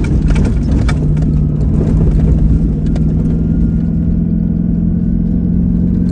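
Four-wheel-drive's engine pulling in low range on soft desert sand, a steady drone that rises slightly in pitch about five seconds in, with a few light knocks in the first second.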